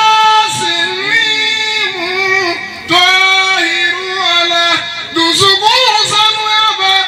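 A man singing a devotional Sufi poem into a microphone in a high voice, holding long notes and ornamenting them with bends and glides, with a short break between phrases about three seconds in.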